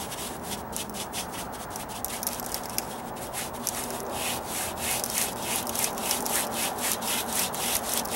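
Paintbrush scrubbing sandy Dryvit stucco patch material onto a rough stucco column, a scratchy rubbing in quick repeated strokes.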